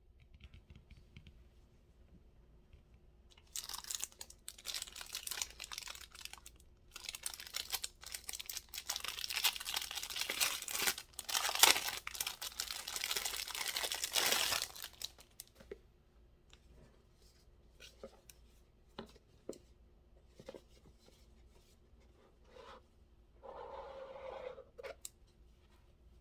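Packaging being torn open and crinkled by hand: about ten seconds of tearing and rustling, then a few light clicks and taps of handling, with one more short rustle near the end.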